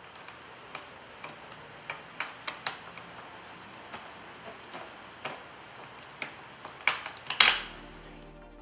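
Irregular small clicks and taps of metal hardware being handled and fitted: a bolt, washer and pulley bracket going onto an exercise machine's cable pulley. A burst of louder clicks comes about seven seconds in.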